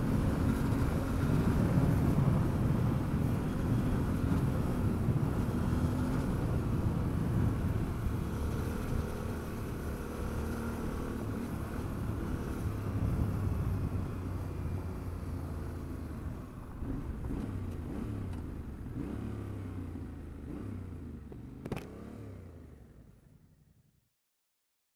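Adventure motorcycle's engine running at road speed on a gravel track, with a steady rush of wind and tyre noise; the engine's pitch rises and falls with the throttle. The sound fades away to silence near the end.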